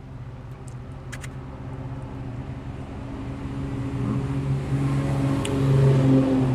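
A motor vehicle's engine running with a steady low hum that grows louder from about three seconds in, as if drawing closer.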